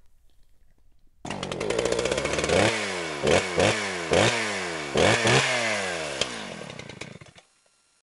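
Small petrol engine revving in a series of quick throttle blips, the pitch falling after each one. It starts about a second in and cuts off abruptly near the end.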